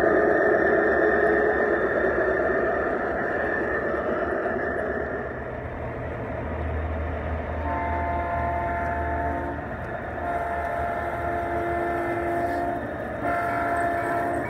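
Large-scale garden railway cars rolling close past on the track, then a model diesel locomotive's sound system blowing its chord horn in three long blasts.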